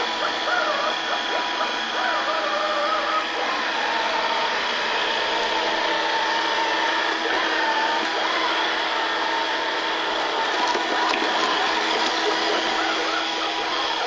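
Sencor SVC 9020 robot vacuum cleaner running on carpet: the steady whir of its suction fan and brushes, with a steady hum underneath.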